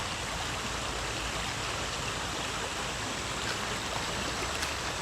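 Steady rushing of flowing creek water, with a few faint ticks near the end.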